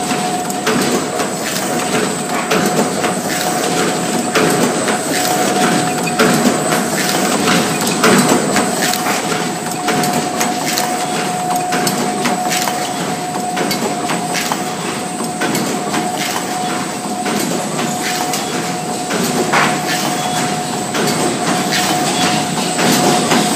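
Automatic paper bowl forming machine running: a steady, dense mechanical clatter of rapid clicks and knocks, with a constant whine underneath.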